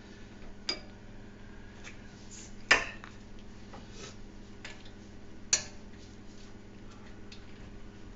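Metal hand tools clinking and clanking, with three sharper clanks about one, three and five and a half seconds in and lighter ticks between, over a low steady hum.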